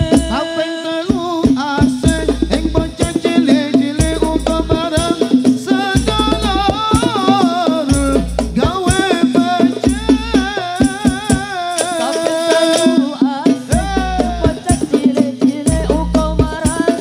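Live Islamic sholawat music amplified through a PA: a sung melody with a wavering, ornamented line over a steady beat of hand percussion and deep bass notes that come and go.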